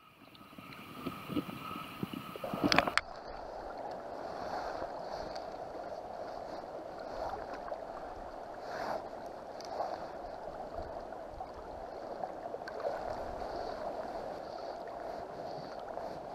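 River current rushing and gurgling steadily around a wading angler's legs, with small swells. For the first few seconds the sound is muffled and underwater, ending in a brief louder burst as it changes to the open-air rush.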